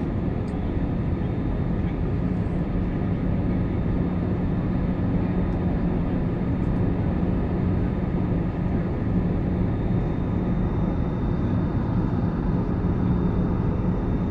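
Steady airliner engine drone heard from inside the passenger cabin: a dense, even rush with a low hum underneath.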